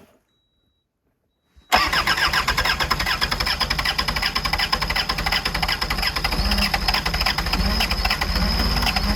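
Skid steer engine starting on its newly fitted starter: silence, then about two seconds in it comes in suddenly and loudly and keeps running steadily.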